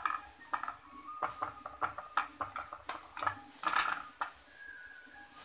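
Knife clicking and scraping against a metal idli plate as steamed idlis are prised out of their moulds: a quick run of light metallic taps, loudest a little under four seconds in.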